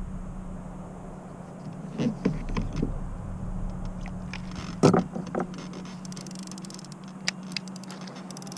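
Knocks and rattles of a fishing rod and tackle being handled in a small boat. There is a cluster of knocks about two seconds in and the loudest, a sharp knock, near five seconds, all over a steady low hum.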